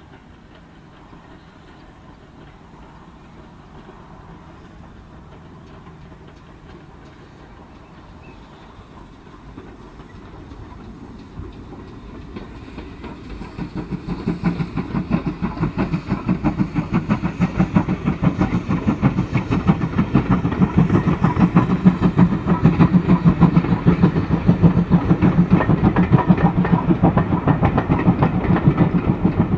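Great Western steam locomotive hauling a passenger train, its rapid rhythmic beat faint at first, then growing much louder from about halfway as it draws near and passes close.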